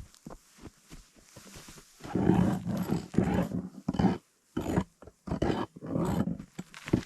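Dogs growling and snarling in rough bursts, starting about two seconds in and coming in four or five spells.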